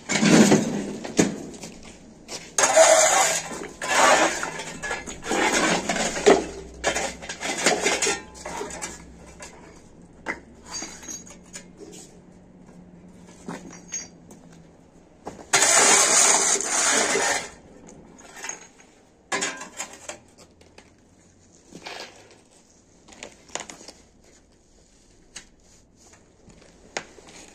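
Broom strokes sweeping rubble and dust across a bare concrete floor, a string of scraping swishes about a second each, with loose debris rattling and clinking. There is a longer, louder scrape a little past halfway, followed by scattered knocks and footsteps on the grit.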